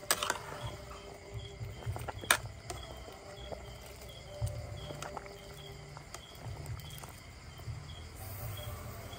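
An insect chirping in a steady rhythm about twice a second over a low rumble, with two sharp knocks: one right at the start and a louder one about two seconds in.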